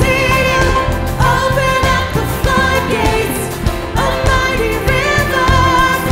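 Live contemporary worship song: a woman sings lead over a full band of drums, guitars, bass and piano.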